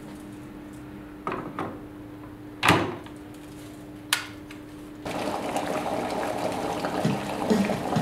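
Glass electric kettle set down on its base with a couple of light knocks and one loud clunk, then a sharp click as it is switched on. From about five seconds in, the water inside bubbles and rushes at a rolling boil.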